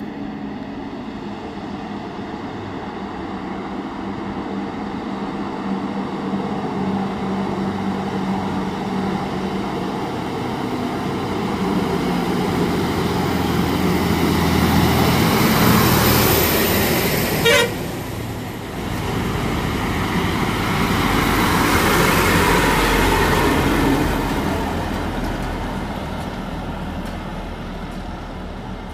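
Heavy diesel goods trucks driving past one after another on a ghat road, their engines growing louder as each one approaches and passes. The first is loudest around the middle, with a brief sharp sound just after, and the second follows a few seconds later before the sound fades.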